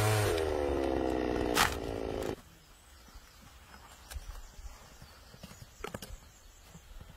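Petrol chainsaw running at high revs while cutting a dry branch, with a sharp crack about one and a half seconds in. It cuts off abruptly a little over two seconds in, leaving only faint scattered knocks.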